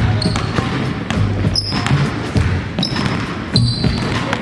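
A basketball bouncing repeatedly on a court, with a few short high squeaks of shoes on the floor.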